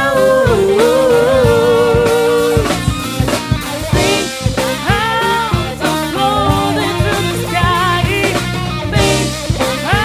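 A band playing a song: a woman singing over electric guitar and a drum kit, holding one long wavering note near the start before further sung lines.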